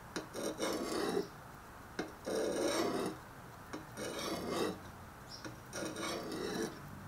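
Steel head of a survival shovel scraping across the coarse side of a sharpening stone in repeated rasping strokes, about one every second and a half, as the blade is turned to sharpen its rounded edge.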